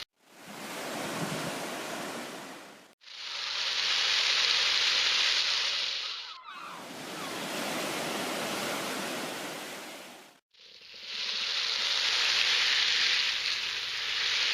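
Homemade ocean drum: beads rolling back and forth across the drumhead, giving a swelling and fading surf-like hiss. It comes in four passes, broken by short silences about 3 and 10 seconds in.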